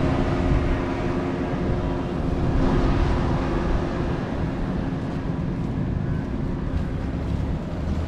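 Motor fishing boat's engine droning steadily and fading out about halfway through, over a constant low rumble.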